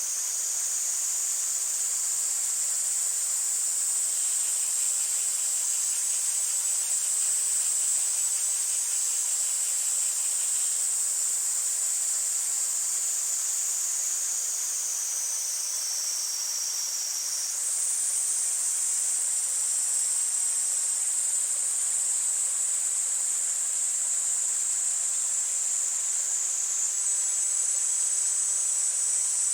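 A chorus of cicadas gives a continuous, high-pitched, shrill buzz. Its pitch jumps abruptly about two thirds of the way through. For a few seconds early on, a lower, pulsing cicada call joins it. Beneath them a mountain stream runs with a soft, even hiss.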